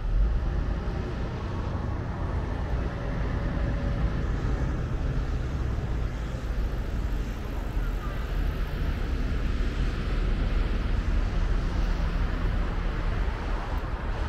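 Steady road traffic noise, with cars running past.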